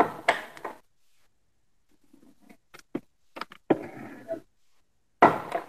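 Gas-spring standing desk converter being pressed down: a series of clicks and knocks and a short sliding hiss from its lift mechanism, then a louder knock near the end as the top settles.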